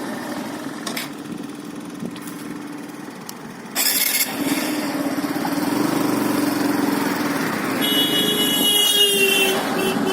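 A motor engine running steadily, with a sudden loud rush of noise about four seconds in and a horn-like tone for a second or so near the end.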